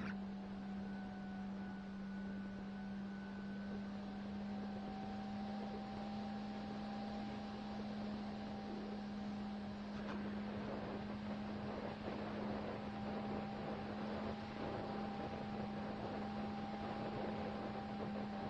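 Motor and propeller of a radio-controlled model airplane humming at a steady pitch, heard from a camera on board, with wind rush that gets rougher about halfway through.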